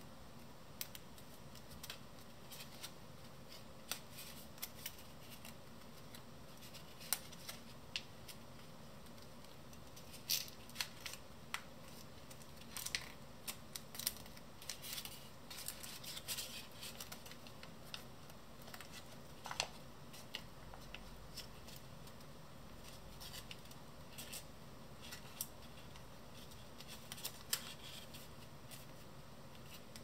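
A sheet of origami paper being folded and creased by hand: scattered crisp crinkles and clicks of the paper, busiest around the middle and sparser at the start and end.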